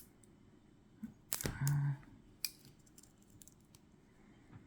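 A few sharp clicks and a short burst of handling noise from a card deck and its packaging being worked open, with a brief low hum about a second and a half in.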